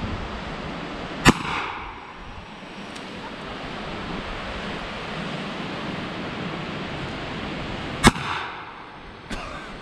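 Two shots from a Smith & Wesson Governor revolver, about seven seconds apart, each with a short ringing echo after the crack.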